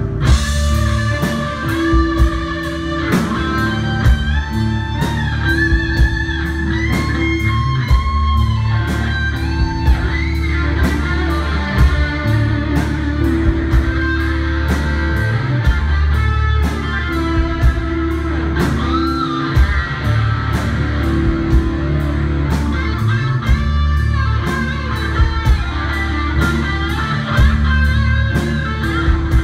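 Live rock band playing: electric guitar carries a melodic line with sliding notes over keyboards, bass and drums keeping a steady beat.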